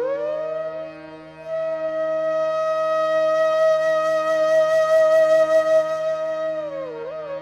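Background flute music: a flute glides into one long held note that lasts about five seconds, then slides down into ornamented turns near the end, over a steady drone.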